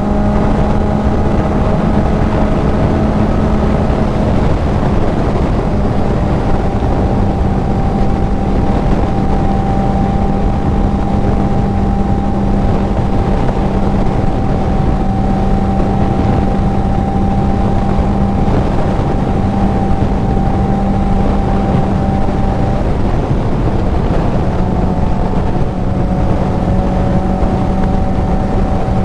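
Kawasaki Z900's inline-four with a CS Racing full exhaust running at a steady cruise, its engine note held almost constant, under heavy wind rush on the helmet mic. The pitch shifts slightly about three-quarters of the way through.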